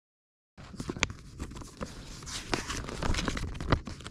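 A hiker's footsteps on a forest trail: a run of irregular steps and knocks, beginning about half a second in.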